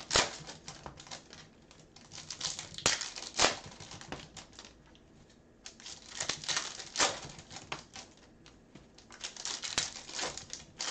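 Trading card pack being opened and handled: the wrapper crinkling and the cards clicking against each other, in several short spells of crackle and sharp clicks with quieter stretches between.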